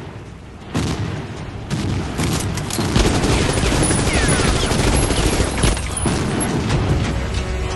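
Action-movie sound effects of explosions and gunfire: a couple of sudden booms in the first two seconds, then a dense, continuous stream of rapid shots.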